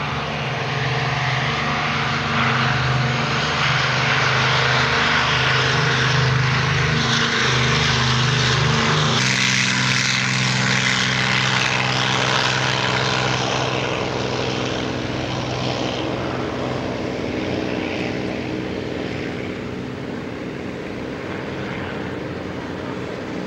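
Propeller aircraft engine flying past. It grows louder, its note shifts abruptly about nine seconds in, and then it slowly fades.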